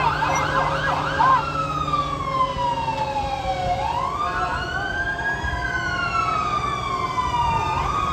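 Fire engine sirens: a fast yelp for about a second, then a slow rising and falling wail, with several sirens sounding over one another. A steady low engine hum runs underneath.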